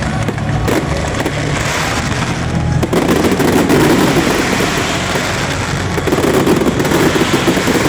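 Fireworks going off in a dense, continuous display: many sharp cracks and crackles over a steady hiss.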